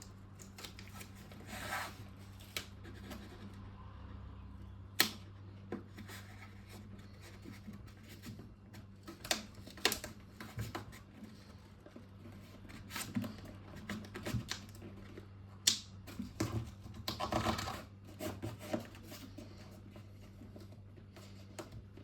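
Cardboard and duct tape being handled as corner protectors are taped onto a receiver: scattered taps and rustles, a few sharp knocks, and a longer rustle about seventeen seconds in. A steady low hum runs underneath.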